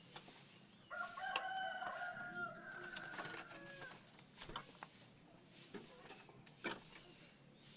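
A rooster crowing once, a long held call lasting about two and a half seconds, starting about a second in. A few sharp clicks follow later.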